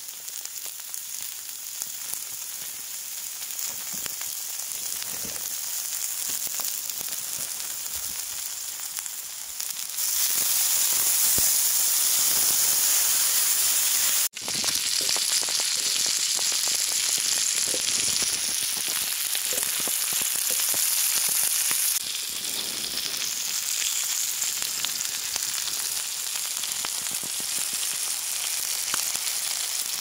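Frog legs sizzling in fat on a hot griddle plate over a wood fire: a steady frying hiss with small pops and crackles. It grows louder about a third of the way in, cuts out for an instant near the middle, and eases back down about two-thirds through.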